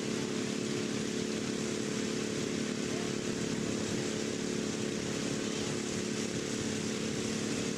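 Racing lawn mower engines running at a steady speed, a constant mechanical drone that holds one pitch without revving.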